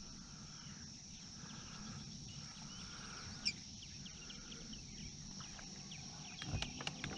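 Steady insect chorus, a constant high-pitched buzz, with a single faint click about halfway through and a few more near the end.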